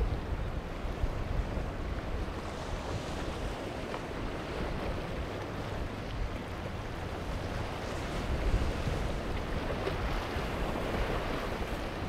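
Wind buffeting the microphone over the rush of waves and churned water at an ocean inlet, with a steady low rumble that swells a little around the middle and again near the end.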